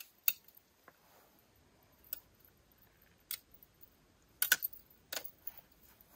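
Irregular sharp clicks and ticks from a fishing rod and reel being handled while the line is tangled, with the loudest cluster about four and a half seconds in.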